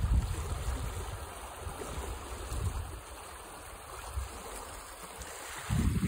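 Shallow, foamy stream running along a dirt channel: a steady hiss of flowing water. Wind buffets the microphone with low rumbling gusts at the start and again near the end.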